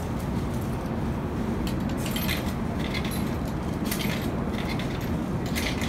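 Coins clinking as they are fed one at a time into a drink vending machine's coin slot and drop into its mechanism: three short bursts of metallic clinks over a steady low rumble.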